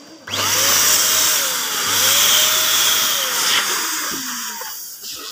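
Electric balloon pump running, its motor blowing air into a latex balloon. The sound starts suddenly and tails off about five seconds in.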